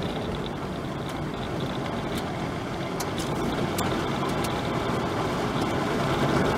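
Steady road and engine noise of a vehicle driving, heard from inside the cab, with a low hum and scattered sharp ticks.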